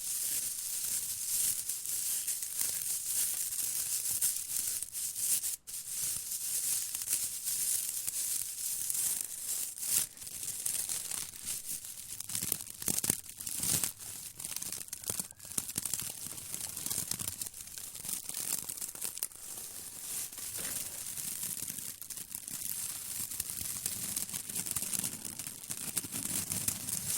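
Straw broom bristles crackling steadily: a dense, continuous dry crackle, mostly high-pitched, with a brief break about five and a half seconds in.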